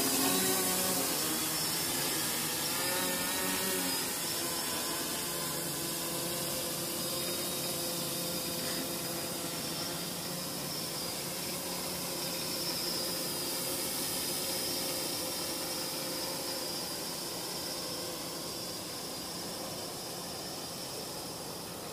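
FPV quadcopter's motors and propellers whining in flight, several tones that waver in pitch for a few seconds near the start, with a steady hiss. The whine fades gradually as the drone moves away.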